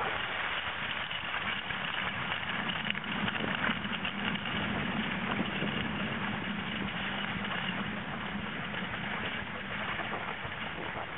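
Backcountry skis sliding over snow on a short downhill run, a steady rushing noise.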